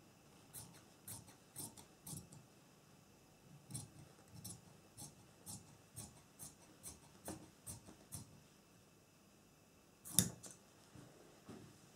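Metal dressmaker's shears snipping through light fabric, a steady run of cuts about two a second. After a short pause there is one louder, sharper click, then a couple of fainter snips near the end.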